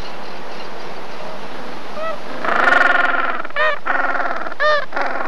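Steady outdoor background noise with a few short animal calls that rise and fall in pitch from about two seconds in, and one longer call a little before the middle.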